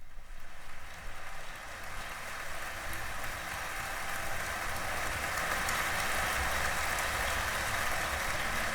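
Audience applause in a concert hall, a dense even patter that grows gradually louder before the symphony begins.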